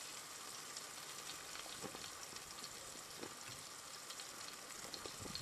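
Small pieces of carp fillet frying in a pan, a faint, steady crackling sizzle, with two soft knocks partway through.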